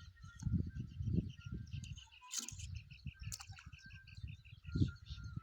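Birds chirping and calling, with a quick run of evenly repeated short notes about three seconds in, over a louder irregular low rumble.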